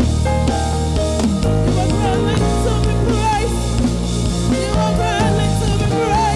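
Worship-band music: drum kit and bass under guitars, with a wavering melody line over them.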